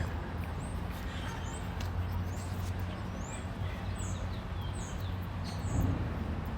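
Small birds chirping: short, high, gliding chirps repeated every half second or so, over a steady low mechanical hum.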